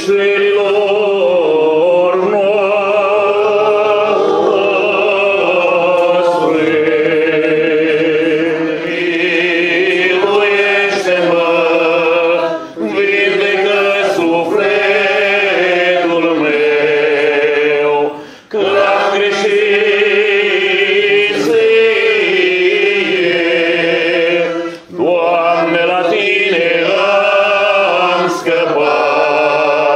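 Orthodox liturgical chant sung by male voices: long melismatic phrases with held and gliding notes, broken by a few short pauses for breath.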